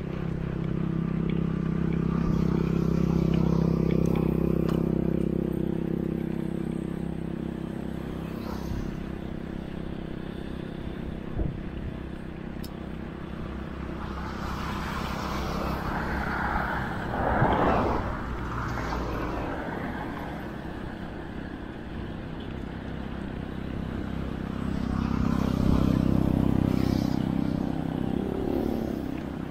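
A motor vehicle engine running steadily with road noise. It grows louder twice, early on and again near the end, with a short rush of noise about halfway through.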